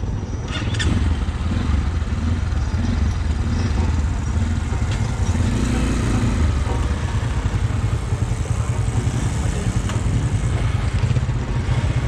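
Zongshen RX1 motorcycle engine running at low speed and idling, a steady low rumble.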